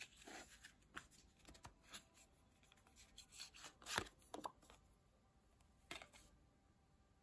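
Faint handling of a deck of Lenormand oracle cards: soft rustles and flicks as cards are drawn from the deck and turned over, with sharper card snaps about four seconds in and around six seconds in.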